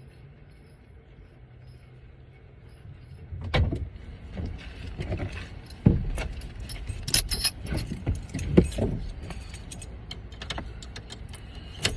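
Keys jangling with a run of irregular clicks and knocks, starting about three and a half seconds in, over a low steady hum.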